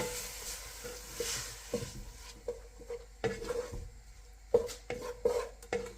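Prawns sizzling in a frying pan, the sizzle dying down over the first couple of seconds, while a utensil stirs them and knocks and scrapes against the pan several times.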